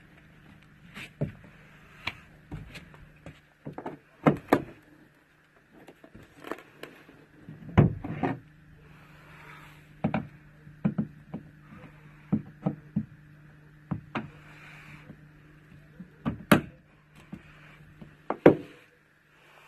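Irregular knocks, scrapes and sharp cracks as a rotten boat floor of wood and fiberglass is pried and ripped up. The loudest cracks come about 8 s in and twice near the end, over a steady low hum.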